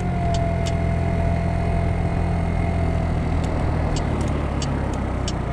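Kymco Agility 50 scooter's 50cc engine idling steadily at a stop. The idle sits somewhat high instead of settling down, which the rider puts down to the carburetor and the cool weather.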